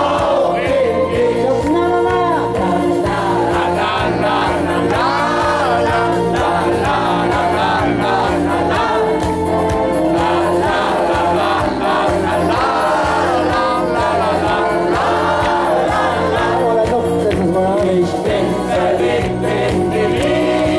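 A live Schlager song: a man singing into a handheld microphone through the PA, over music with a steady beat.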